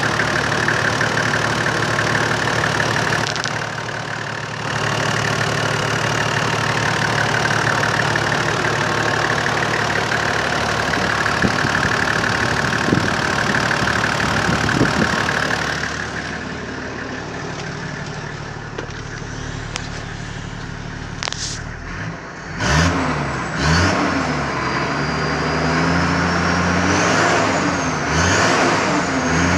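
Toyota 1HZ 4.2-litre inline-six diesel in a 2001 LandCruiser 100 Series idling steadily. Later, heard from inside the cab, it is revved several times, the pitch rising and falling with each blip.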